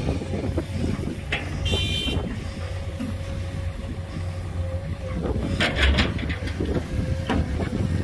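Heavy diesel engines of a 25-ton dump truck tipping sand and an excavator running, a steady low rumble with a steady whine on and off. A short high-pitched beep comes a little before 2 s, and a burst of clanking with a low thump about 6 s in.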